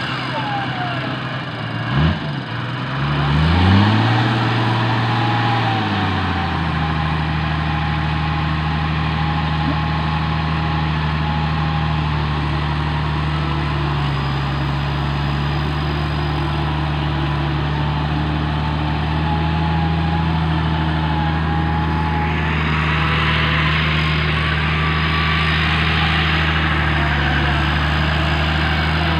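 Engine of a Toyota Land Cruiser 40-series 4x4 stuck in mud, revving up and down a few seconds in, then running steadily at a raised idle while the vehicle is pulled out on a cable, with a fainter wavering whine above the engine note.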